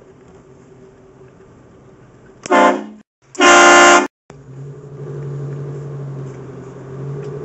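Car-mounted train horn blasting twice, a short blast about two and a half seconds in, then a longer one of under a second. A steady, much quieter low hum follows.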